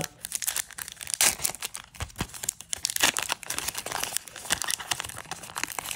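Foil wrapper of a Magic: The Gathering booster pack crinkling and tearing as it is pulled open by hand, a dense run of small crackles.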